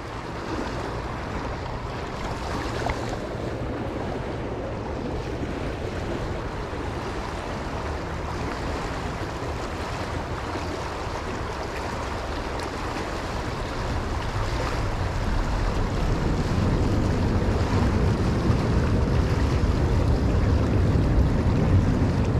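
Shallow, fast-flowing river rushing over rocks, a steady wash of water noise, with wind buffeting the microphone. The low wind rumble grows louder about two-thirds of the way through.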